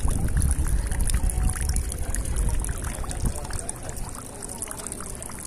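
Thin streams of water trickling and splashing from a cast-iron street drinking fountain's spouts, with a low rumble on the microphone that is strongest for the first few seconds and then eases.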